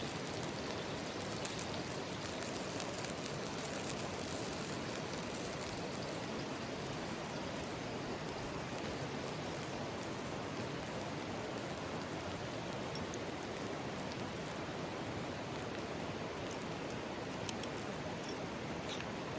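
Mountain stream running steadily, with a few faint ticks, one a little louder near the end.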